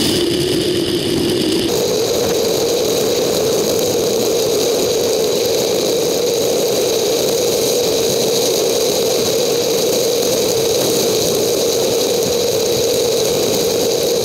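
Steady whirring drone of a bicycle ride recorded on a GoPro, played sped up, so the wind and tyre noise is raised into a steady whine. The tone shifts abruptly about two seconds in, as at a cut between sped-up clips.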